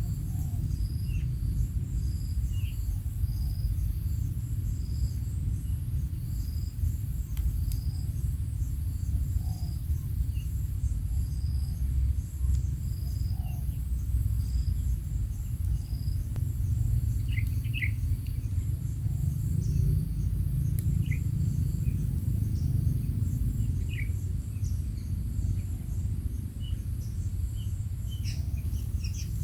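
Insects chirping in a regular pulse about once a second over a steady high trill, with short bird chirps now and then, more of them in the second half, over a steady low rumble.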